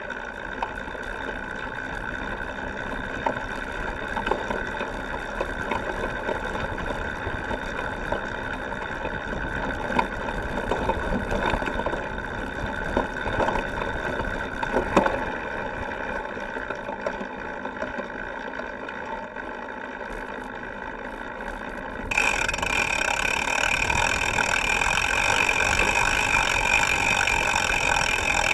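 Cyclocross bike's rear wheel rolling over rough grass and dirt, heard close up from a frame-mounted camera: steady tyre and frame rattle with the rear hub's freehub ticking as the rider coasts, and a few knocks over bumps. About 22 seconds in the noise turns suddenly louder and brighter.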